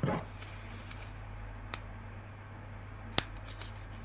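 A brief rustle, then two sharp clicks about a second and a half apart, over a steady low hum.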